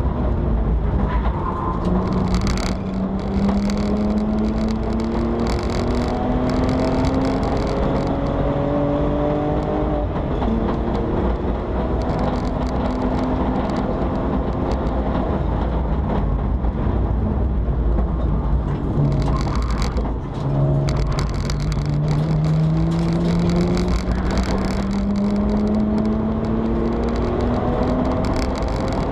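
Straight-six engine of a BMW 325i E90 race car, heard from inside the cabin under hard acceleration. The pitch climbs slowly through long pulls and drops at each gearchange: near the start, about a third of the way in, about two-thirds in and near the end. A constant low rumble of road and wind noise runs underneath.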